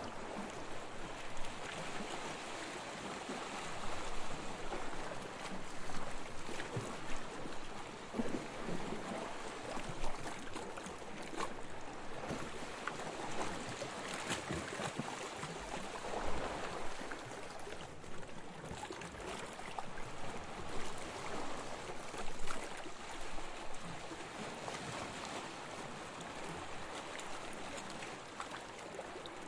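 Gentle waves washing onto a beach, a steady hiss of water that swells and eases every few seconds, with light splashes and fizzing as the water breaks and runs back.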